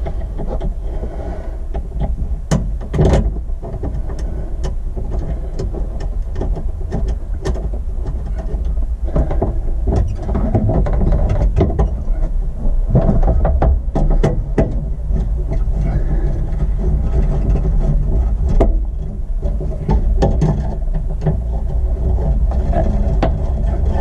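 A speaker holder being fitted and fastened in a car's rear plastic trim panel: scattered clicks, taps and knocks of a hand tool against plastic and metal, over a steady low hum.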